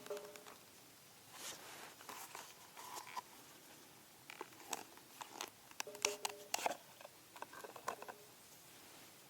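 Metal camp cookware and utensils being handled: scattered clinks, taps and short scrapes, with a brief ringing clink at the start and another about six seconds in.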